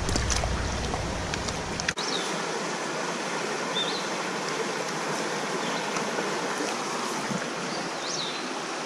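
Shallow creek water running steadily over rocks, with a few short high chirps around the middle and near the end.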